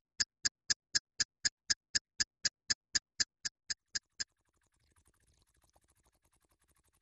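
Sharp, evenly spaced ticks, about four a second, each with the same bright, high click. They stop abruptly about four seconds in.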